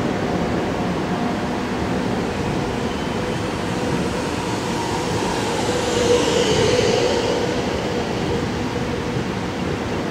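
Alstom X'trapolis electric multiple unit moving along the platform close by: a steady rumble of wheels and running gear. About five to seven seconds in comes the loudest moment, a high whine that falls in pitch.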